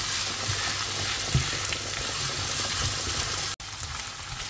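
Diced chicken breast and onion sizzling in olive oil in a frying pan, a steady hiss with a few soft low knocks. The sound drops out for an instant a little past three seconds in, then the sizzling carries on slightly quieter.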